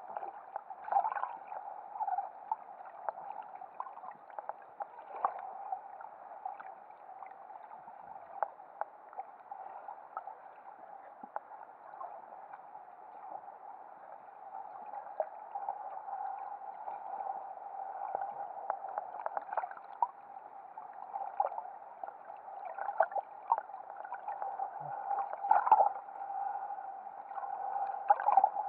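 Underwater ambience: a steady muffled hum with many scattered clicks and knocks, little sound above the low middle range.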